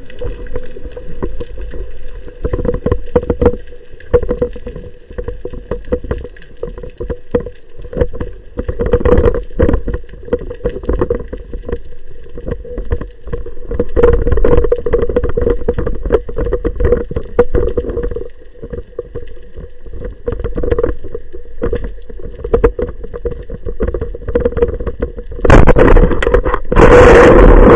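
Muffled underwater sound recorded through a camera housing: a steady hum with irregular clicks and knocks. A loud rushing noise starts near the end.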